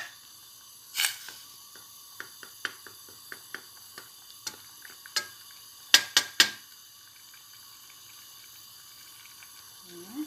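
Wooden spoon knocking and tapping against a stainless steel pot of grated potato in water on the stove, with scattered small clicks. There is a louder knock about a second in and three sharp knocks close together about six seconds in, over a faint steady background hiss.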